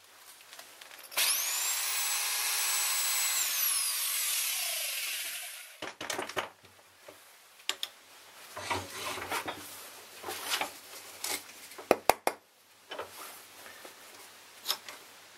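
Electric drill drilling out the spot weld on a car door check clamped in a vise: it runs for about four and a half seconds, its whine rising as it spins up and falling away as it stops. After that come scattered clicks and knocks of the metal parts and a wooden block being handled in the vise.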